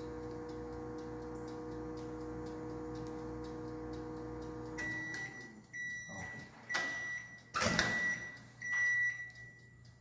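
La Germania microwave oven running with a steady hum and faint ticking that stops about five seconds in. The oven then beeps five times at one high pitch, its end-of-cycle signal, with a loud clunk during the fourth beep.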